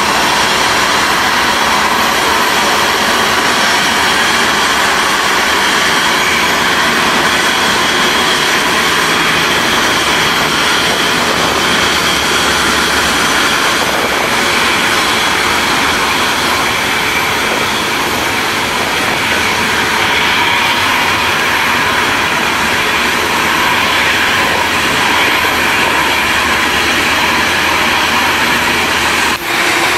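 Airbus A350-900's Rolls-Royce Trent XWB engines running at taxi power: a loud, steady rushing hiss with a faint whine.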